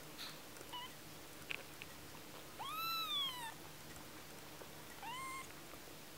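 One-week-old kitten mewing: a brief faint squeak near the start, then two high-pitched mews, the first longer and louder, rising then falling in pitch, the second short.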